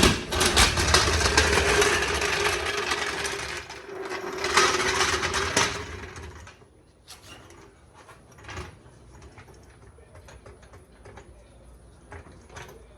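A handheld power tool running steadily for about six seconds, easing off briefly near the middle, then stopping, followed by faint clicks and handling noises.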